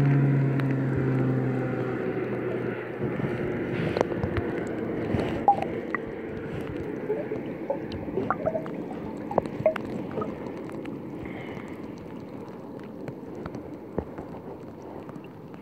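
Water lapping and splashing close by, with many small ticks and drips. A low droning hum, falling slightly in pitch, fades out over the first three seconds.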